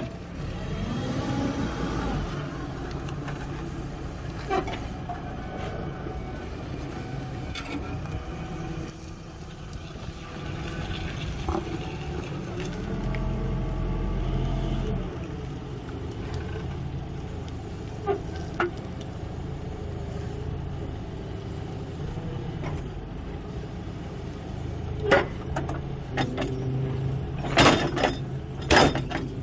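A vehicle's engine running steadily, rising in pitch briefly about a second in and surging louder around the middle. Several sharp metallic clanks come near the end.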